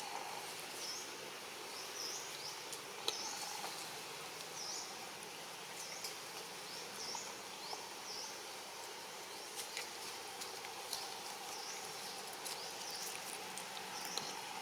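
Steady outdoor background hiss with a series of short, high chirps repeating about once a second, and a few faint clicks.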